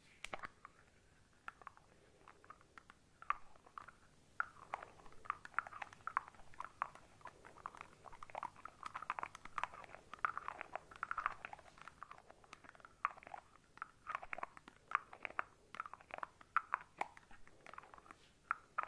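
Shaving cream foam being squished and worked close to the microphone: an irregular run of small wet crackles and squelches, sparse at first and thicker from about four seconds in.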